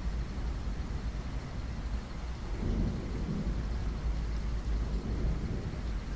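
Steady rain, a continuous hiss over a deep low rumble that swells for a second or so in the middle.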